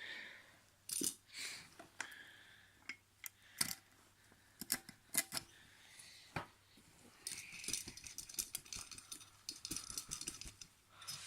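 Scattered clicks, knocks and rattling, with a denser burst of rattling and rustling about seven seconds in, from handling a Hoover 119 upright vacuum cleaner while its bag is opened to check how full it is.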